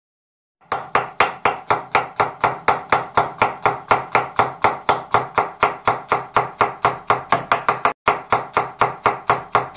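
Large kitchen knife rapidly chopping an onion on a plastic cutting board: fast, even knocks of the blade on the board, about five a second. The knocks start just under a second in and break off briefly about eight seconds in.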